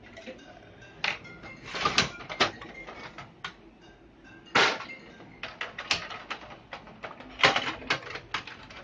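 Plastic casing and cover panels of an HP LaserJet 1020 laser printer clacking and knocking as they are handled and pulled apart: an irregular run of sharp knocks and clicks, about one a second, the loudest about two and four and a half seconds in.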